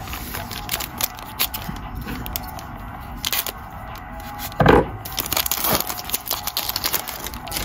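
A trading card pack's wrapper being crinkled and torn open: a run of sharp crackles, one louder rip about four and a half seconds in, then dense crinkling.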